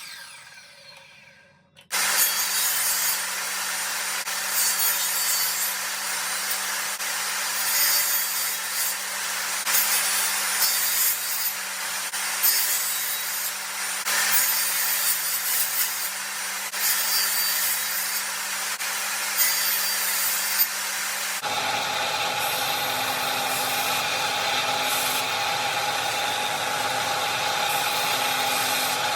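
A motor-driven woodworking tool working wood: a steady motor hum under repeated rasping strokes every second or two. About two-thirds of the way through it cuts to a different machine running steadily with a higher whine.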